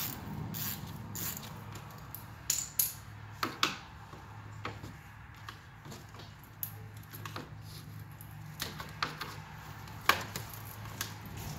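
Scattered clicks and knocks of hands working the factory charge pipes and plastic fittings off the stock intercooler, the loudest a few sharp knocks around three seconds in, over a steady low hum.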